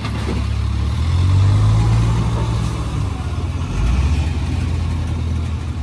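Diesel engine of a Tata tractor-trailer truck labouring under load as it hauls a loaded trailer through mud, swelling louder about a second in and again near four seconds.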